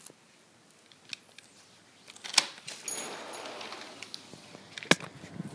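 Handling noise of a tablet being carried: two sharp knocks about two and a half seconds apart, with rustling between them.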